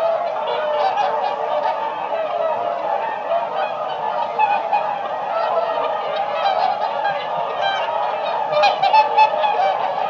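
A flock of swans calling all together, many overlapping honking calls in a continuous chorus, with a few louder calls near the end.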